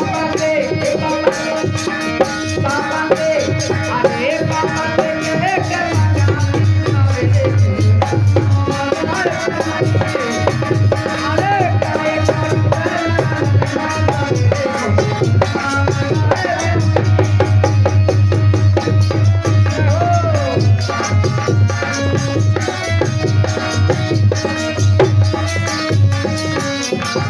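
Indian devotional folk music played by a small band: tabla-style hand drums and rattles keep a steady beat under a melodic line that slides in pitch.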